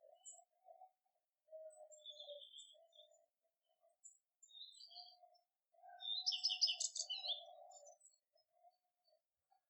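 Male common redstart singing: short high notes, then a louder quick run of repeated notes about six seconds in. A faint low background sound runs underneath.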